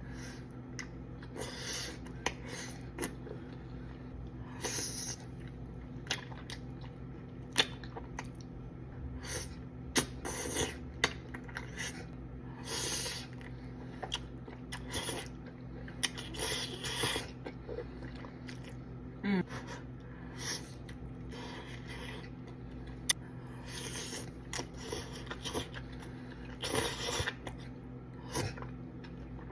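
Close-miked eating of ramen: irregular short slurps and chewing with sharp mouth and utensil clicks, over a steady low hum.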